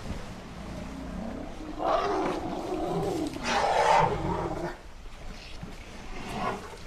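Elephant roaring: two long, loud calls with a wavering pitch about two and three and a half seconds in, then a shorter, fainter call near the end.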